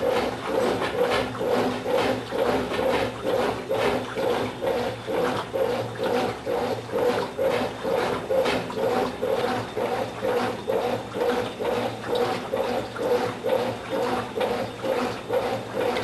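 Brastemp Tira-Manchas 9 kg top-load washer agitating: the agitator swings back and forth about twice a second, each stroke a swish of water through the load over the motor's hum. The agitation cuts off suddenly at the very end.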